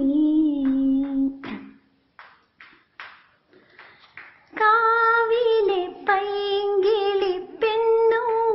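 A woman's voice singing a Malayalam Onam song without recognisable words. A held note with vibrato ends about a second and a half in, a soft pause with faint breaths follows, and long sustained sung notes come back about four and a half seconds in.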